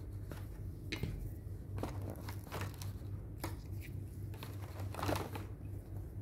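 Light crinkling and rustling with scattered small clicks as a bread sandwich is handled and pulled open, with a slightly louder rustle about five seconds in. A steady low hum runs underneath.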